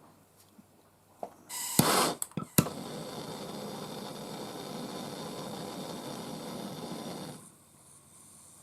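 MAP gas torch being lit: a few sharp clicks and a loud burst of gas, then the flame burning with a steady hiss for about five seconds before it is shut off suddenly.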